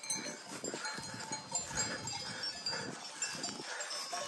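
Bells on a herd of goats clinking and ringing irregularly as the animals move about.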